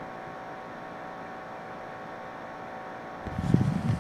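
Steady hiss with a faint electrical hum. Near the end comes a short, low rumble from the camera being moved by hand.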